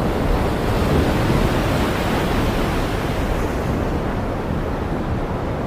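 Heavy wind and rain making a steady rushing noise, with gusts of wind buffeting the microphone.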